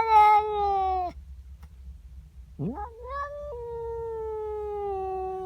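Domestic cat caterwauling: a long yowl that ends about a second in, then a second, longer yowl that rises sharply and is then held, slowly falling in pitch. It is territorial yowling at another cat in her garden.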